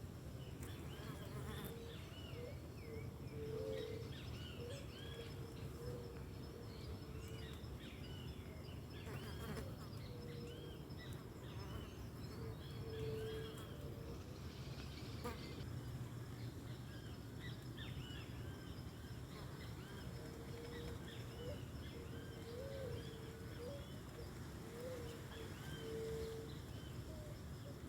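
Forest ambience: insects humming steadily, with many short chirping bird calls throughout.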